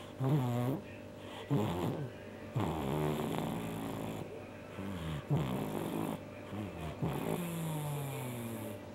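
A pet snoring: several irregular pitched snores, the last a long falling one near the end.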